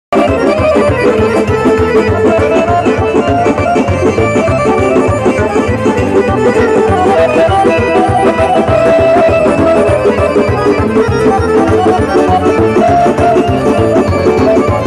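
Live traditional-style band music played loud through a stage PA system: keyboard and melody instruments over a steady, regular drum beat.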